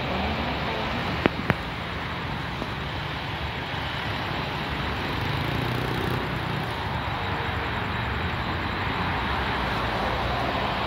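Alsthom diesel-electric locomotive approaching from a distance: a steady engine drone with a low hum, and two sharp clicks about a second and a half in.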